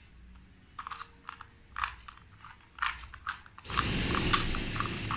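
Rubik's cube turning: single plastic clicks about once a second, then a louder, continuous rasping clatter of quick turns lasting about a second and a half near the end.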